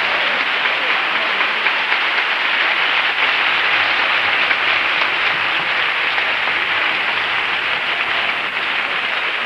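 Large audience applauding steadily, easing slightly near the end.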